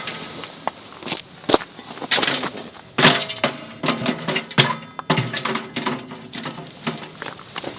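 A run of irregular knocks, clicks and clatters, with rustling between them.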